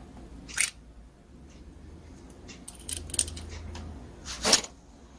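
Small metal clicks and ticks of a gas brush cutter's carburetor being taken apart by hand with a small tool: a sharp click under a second in, a cluster of light ticks around three seconds, and a louder scraping clatter near the end.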